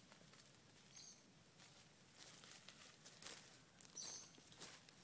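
Faint crunching and rustling of footsteps through dry leaf litter and bark, growing busier about halfway through, with two short, high bird chirps, one about a second in and one near the end.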